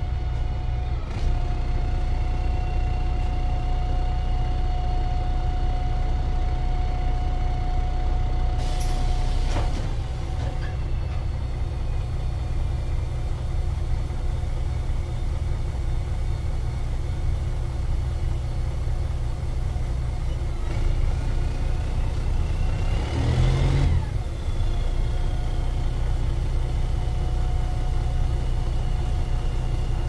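Mercedes-Benz O-500MA articulated bus's diesel engine running with a holed exhaust, a steady low rumble. A brief hiss comes near ten seconds in and a short, louder surge around two-thirds of the way through.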